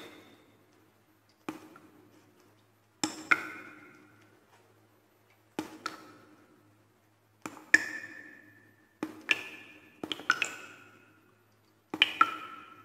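Sparse, irregular percussive pings: sharp strikes, often in quick pairs or threes, each with a short ringing tone that dies away, over a faint low hum.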